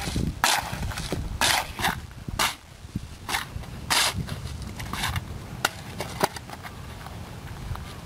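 Steel shovel scraping and scooping wet earth and gravel in short repeated strokes, about one a second, with a couple of sharp clinks later on.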